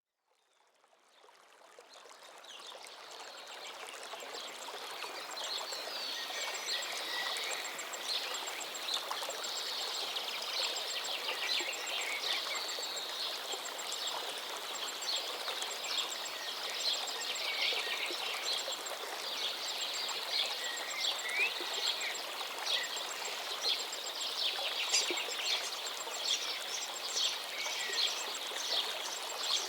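Steady rush of a large waterfall's falling water, fading in over the first few seconds, with many birds chirping over it.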